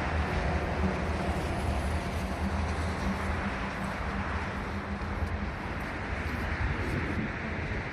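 Outdoor urban background noise with distant road traffic. A steady low engine hum from a vehicle fades about five seconds in.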